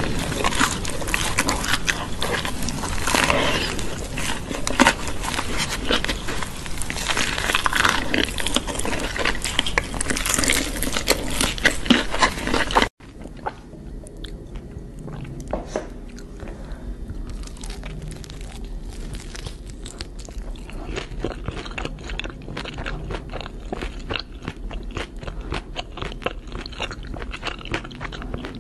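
Close-miked eating sounds: loud crunching bites and chewing of a crispy fried chicken burger, then, after a sudden cut about 13 seconds in, quieter chewing of sauce-coated fried chicken wings with many small clicks.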